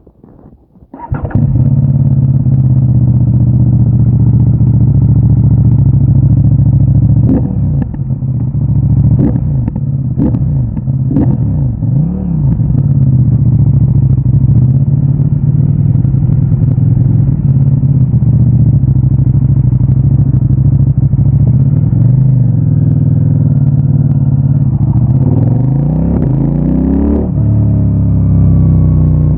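CFMOTO 800NK Advanced's parallel-twin engine on its stock exhaust, catching about a second in and then idling steadily. A few quick throttle blips in the middle, and the revs climb near the end.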